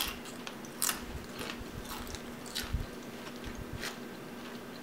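Close-miked chewing of tortilla chips dipped in salsa: a handful of sharp crunches, irregularly spaced, over quieter chewing.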